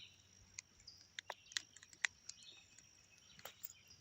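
Faint scattered sharp clicks and taps, about half a dozen, over faint bird chirps and a thin steady high insect buzz.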